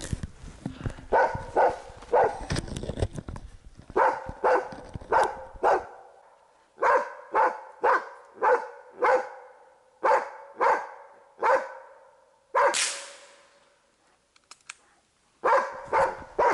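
Hunting dog barking steadily at a sable it has treed, about two barks a second. About twelve and a half seconds in a single gunshot cracks out, the barking stops briefly, and it starts again near the end.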